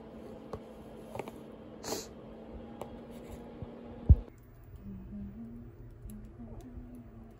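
Small clicks and rustles of a plastic food container of dried shrimp being handled, with one sharp thump about four seconds in. After that a soft, low tune of held notes begins.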